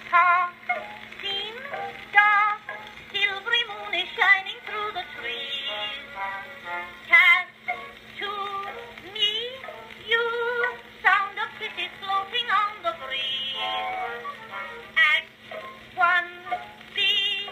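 Edison Blue Amberol cylinder record playing on an Edison Fireside Model A phonograph: a woman singing with vibrato over instrumental accompaniment. The sound has no high treble, and a faint steady hum runs beneath it.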